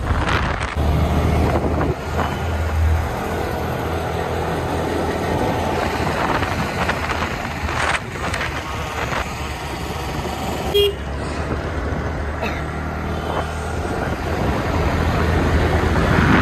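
Steady low road and wind rumble of a moving vehicle in city traffic, with a short horn beep about eleven seconds in.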